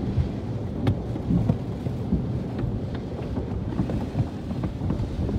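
Automatic car wash water spray pelting the car's body and windows, heard from inside the cabin as a steady low rumble with scattered sharp taps.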